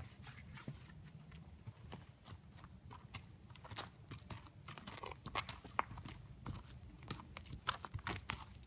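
Hooves of a Nez Perce horse walking on gravel and grass: irregular soft crunching footfalls, thicker in the second half, over a low steady rumble.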